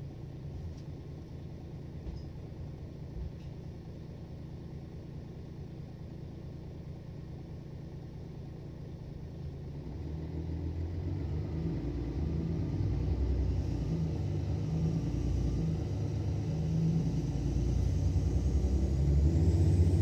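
Mercedes-Benz Citaro O530 city bus's diesel engine heard from inside the cabin: a steady low rumble that, from about halfway, grows steadily louder as the engine takes load and the bus accelerates.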